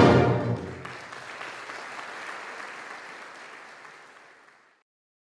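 Brass band's final chord cut off with a loud hit that rings away within half a second, then audience applause that fades out about four and a half seconds in.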